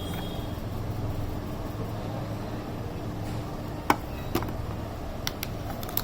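Steady low background hum, with a few sharp clicks and taps from handling the phone box and its accessories, the loudest about four seconds in.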